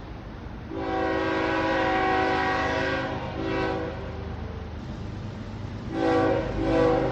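Train locomotive's air horn sounding a long blast, then a short one, then two more short blasts near the end, over a steady low rumble of the arriving train.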